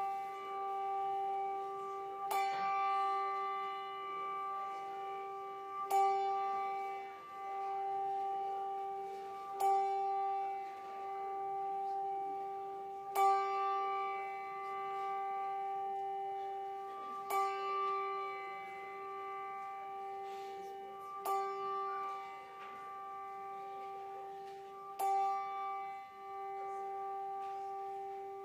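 Brass handbell rung with a slow, even stroke, about one strike every three and a half seconds, seven strikes in all. Each strike rings on until the next one.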